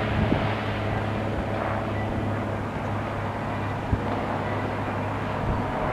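Machinery running in a steady, low drone with a constant hum and no breaks.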